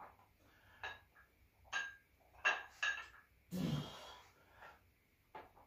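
Plate-loaded 20 kg dumbbells clinking during seated incline bicep curls: about four short metallic clinks with a brief ring, as the plates knock on each rep. Then a strained breath out from the lifter about halfway through, with a few fainter knocks after it.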